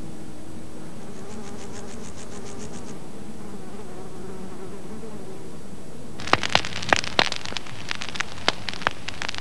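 Insects buzzing with a steady, wavering drone over a grassy meadow, with a short run of rapid high ticks about a second in. About six seconds in, burning grass starts crackling, with irregular sharp snaps and pops.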